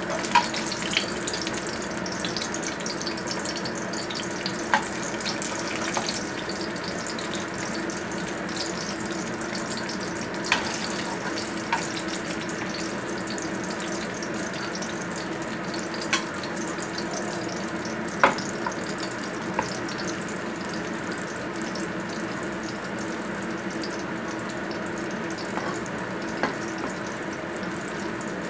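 Floured fish steaks shallow-frying in hot oil in a wok: a steady sizzle with occasional sharp pops and ticks, over a steady low hum.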